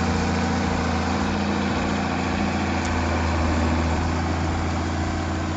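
Heavy machine's engine running steadily at a low, even hum.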